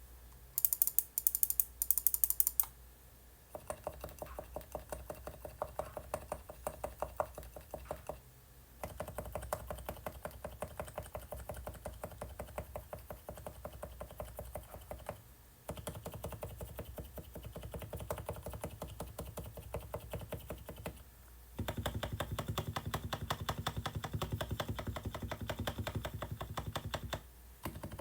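Typing on a Realforce R2 silent 45g Topre keyboard with lubed slider housings and springs, Permatex-lubed stabilizers and Thinsulate dampening: soft, muted keystrokes in fast continuous runs with a few short pauses. A few sharper clicks come in the first couple of seconds, and the last run sounds fuller and deeper.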